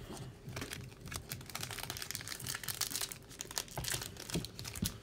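Foil booster pack wrapper crinkling and tearing as it is pulled open by hand, a dense run of crackles.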